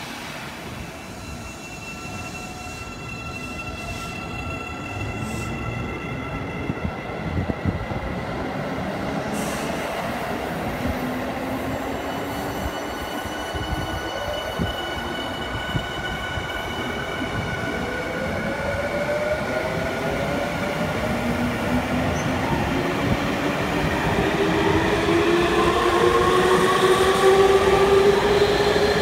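Electric commuter train, a Y500-series EMU, pulling away from a station platform. Its traction motors give a whine of several tones that climbs in pitch as it accelerates, over the rumble of wheels on rail, and the sound grows louder toward the end.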